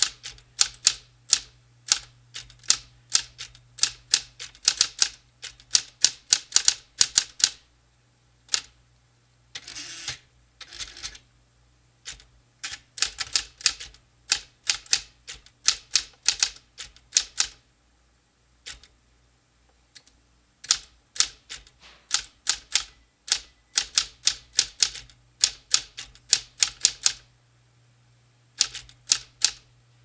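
Smith-Corona typewriter typing in quick runs of sharp keystrokes, several a second, broken by short pauses. About ten seconds in there is a brief whirring sweep as the carriage returns. A low steady hum runs underneath.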